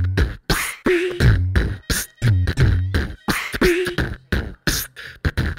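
Human beatboxing: a repeating beat of deep vocal bass kicks and sharp mouth snare and hi-hat clicks, with a falling pitched bass slide about once a second.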